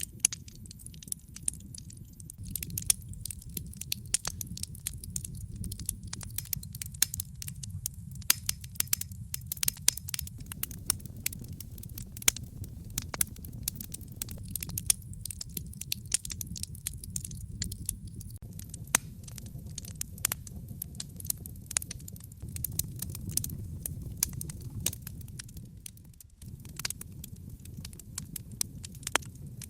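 Fireplace fire crackling, with frequent sharp pops and snaps over a low steady rumble of the flames; the rumble drops out briefly near the end.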